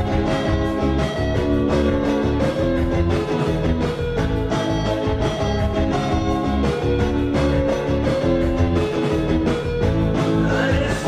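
Background music: an instrumental track with guitar over a steady beat.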